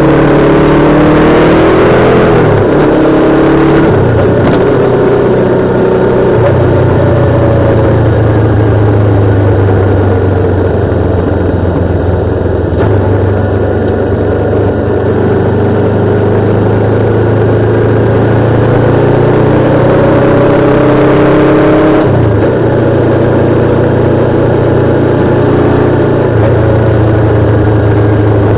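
Motorcycle engine running under load at circuit speed over a steady rush of noise, its note changing about three seconds in and again about twenty-two seconds in, then holding steady.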